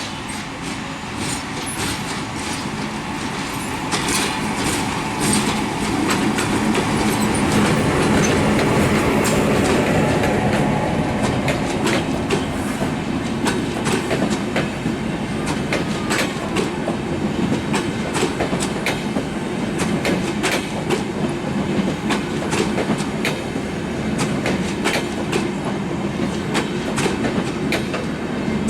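ALCo diesel-hauled passenger train running past, loudest about eight to ten seconds in. After that, the coaches' wheels keep up a steady clickety-clack of sharp clicks over the rail joints.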